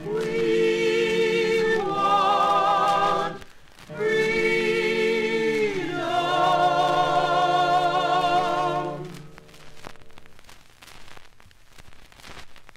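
A small group of voices singing in harmony, holding four long drawn-out chords with vibrato to end a song, on an old 45 rpm record. After about nine seconds the singing stops and the record's surface crackle and clicks run on quietly in the gap between tracks.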